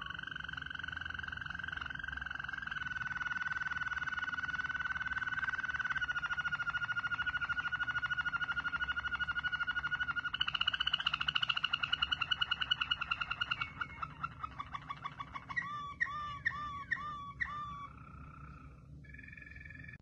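Waterslager canary singing: a long, fast rolled trill held on one pitch for about fourteen seconds, then a short run of repeated looping notes near the end.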